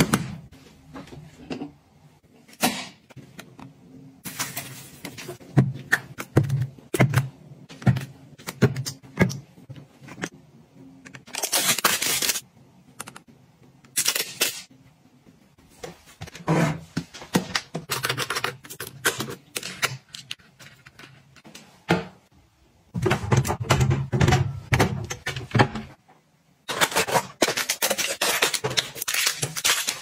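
Hands handling plastic household containers and packaging: many short clicks, taps and knocks, with a few longer stretches of rustling and scraping.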